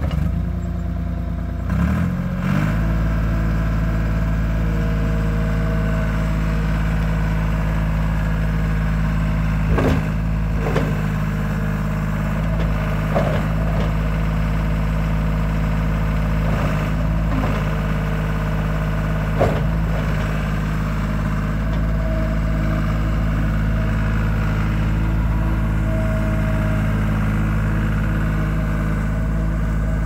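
John Deere 240 skid steer's three-cylinder diesel engine running steadily, with a brief shift in pitch about two seconds in. Several short knocks come between about ten and twenty seconds in.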